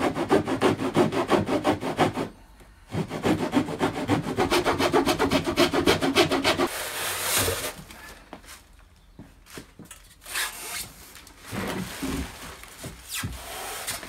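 A blade sawing back and forth through thick reinforced cardboard in rapid strokes, with a short pause about two seconds in, stopping about seven seconds in. After that comes a burst of rustling, then quieter handling of plastic air-column packaging wrap.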